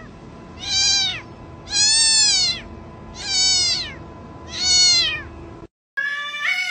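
A cat meowing repeatedly: four long, drawn-out meows, each rising and then falling in pitch, about a second and a half apart. The sound cuts out abruptly near the end.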